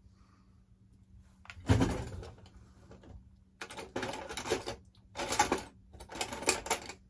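Hand tools clattering as someone rummages through a toolbox. There is a knock about two seconds in, then three short rattling bursts.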